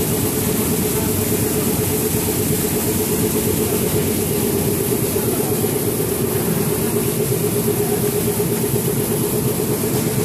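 A machine or engine running steadily: a constant hum with a steady tone over a rushing noise.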